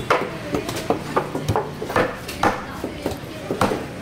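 Knife strokes on a koduva (barramundi) on a cutting board: a run of sharp knocks, the loudest about every half second, with lighter clicks between.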